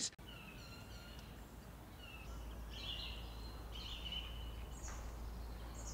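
Several short bird chirps and whistled phrases over a low, steady outdoor background rumble.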